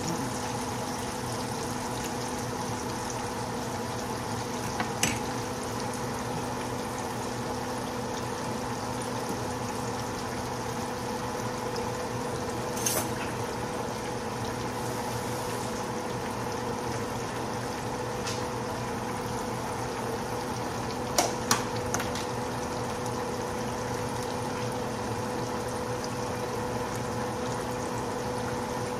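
Pork chops frying in hot oil in a skillet: a steady sizzle, with a few sharp pops of spattering grease, several of them close together about three-quarters of the way through.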